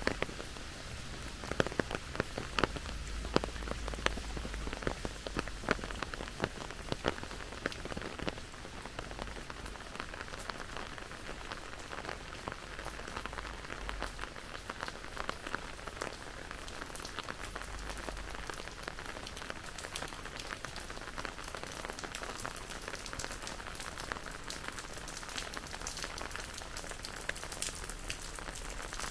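Steady rain falling, with many sharp individual drop hits close by, most frequent in the first eight seconds or so.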